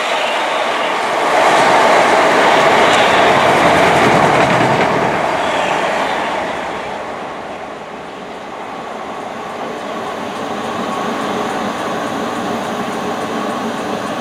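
Southern Class 377 Electrostar electric train running past close by, loudest for the first few seconds and fading about six seconds in. Then a steadier, quieter train sound as another unit pulls in along the platform.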